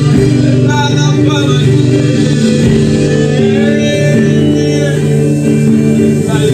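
Worship music with guitar and a voice singing over sustained chords.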